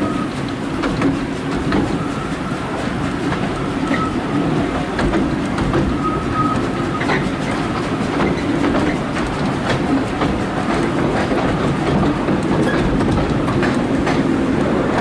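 Narrow-gauge railway carriage running along the track: a steady rumble of wheels on rail with frequent clicks over the rail joints and a few brief high squeals from the wheels.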